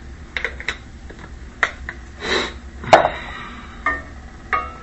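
Scattered sharp taps and clinks of kitchen utensils against dishes while herb butter is being prepared, about half a dozen over the few seconds, the sharpest about three seconds in.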